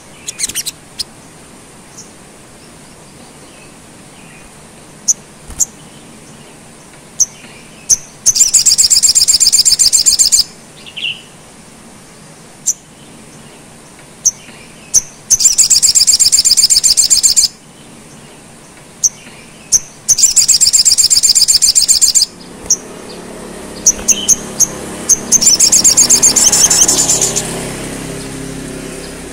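Caged male olive-backed sunbird singing: four loud, high-pitched rapid trills, each about two seconds long, with single sharp chip notes scattered between them. A low background rumble rises near the end.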